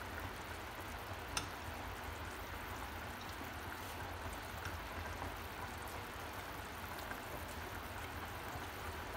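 Pot of chicken and shiitake mushrooms simmering in its braising liquid: a quiet steady bubbling with scattered small pops, and one light tap about one and a half seconds in.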